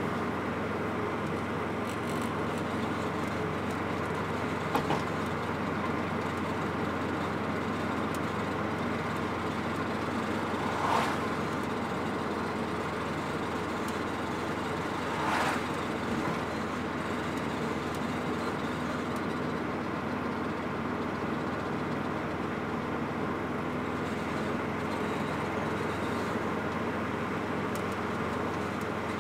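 Subaru WRX driving, with a steady loud noise from the front left wheel area that follows wheel speed, not engine speed, and is unchanged by braking. Twice midway it briefly swells louder.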